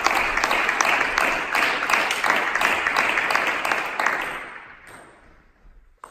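Applause and hand clapping between rallies of a table tennis match, dying away about four to five seconds in.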